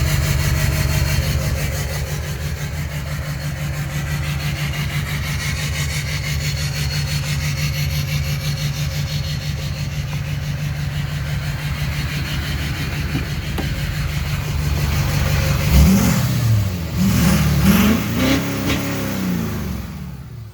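Duramax LMM 6.6-litre V8 turbo-diesel idling steadily, then revved up and back down about three times near the end. The engine has a misfire on cylinder 7.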